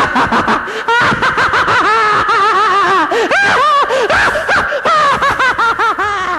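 Loud, high-pitched laughter in a put-on puppet voice: rapid giggles and squeals that rise and fall in pitch almost without a break, the laughter of someone being tickled.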